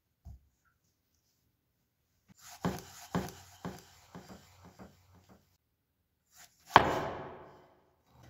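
Cleaver cutting a tomato on a wooden cutting board: a run of light knocks of the blade on the board, then one loud chop near the end that fades away over about a second.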